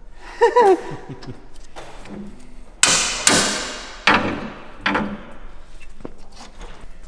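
Metal being struck on a rusted steel car chassis while seized parts are worked free: four sharp clanking blows with a ringing tail, roughly a second apart, starting about three seconds in. Before them, about half a second in, comes a short pitched sound.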